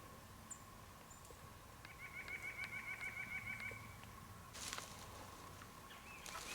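Gray squirrel's alarm chatter: a quick run of evenly repeated high, squawking calls lasting about two seconds, starting about two seconds in, with a brief rustle of leaves near the end.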